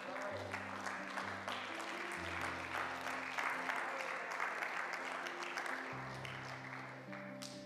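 Congregation applauding over soft, sustained instrumental chords. The applause fades near the end.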